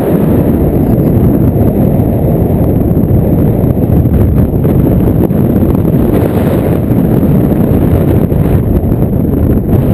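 Loud, steady wind rush buffeting an action camera's microphone in fast paragliding flight during a spiralling turn.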